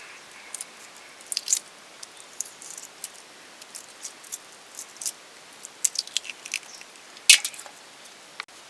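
Hard-boiled eggs being peeled by hand: irregular small cracks and crunches of eggshell breaking and coming away, with the sharpest crack about seven seconds in.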